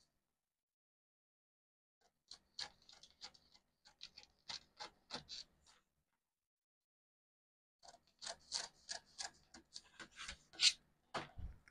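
Drawing on pattern paper: two runs of short, quick scratching strokes, with a pause between them and a soft knock near the end.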